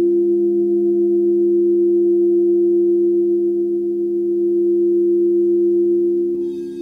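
Crystal alchemy singing bowls ringing on in a steady hum of a few low tones. Near the end, brighter, higher tones join as a bowl is played again with the wand.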